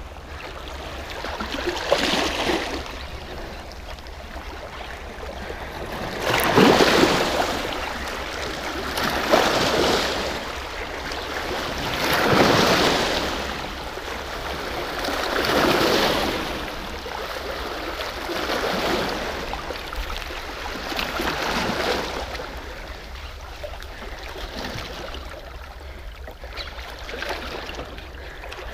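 Small waves washing against shoreline rocks, a rushing surge that swells and fades about every three seconds.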